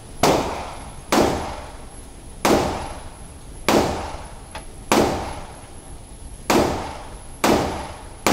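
A 1911 pistol in .45 ACP fired seven times in a slow string, about one shot every second or so. Each shot rings out with a long echo off the walls of an indoor range.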